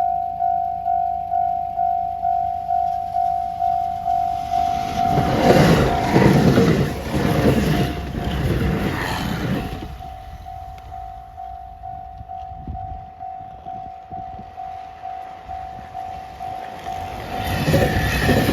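Japanese level-crossing warning bell dinging steadily about twice a second while a train runs past over the rails, the loud rumble and wheel clatter swelling about five seconds in and fading by ten seconds. The rail noise builds again near the end as more train passes.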